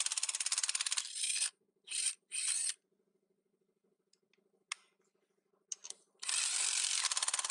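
Parkside cordless impact wrench hammering on a car wheel's lug nuts: a run of rapid impacts, two short bursts about two seconds in, a pause with one click, then another long run starting near the end.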